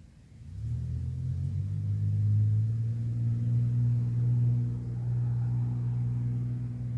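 A motor or engine starts about half a second in and runs with a steady low hum.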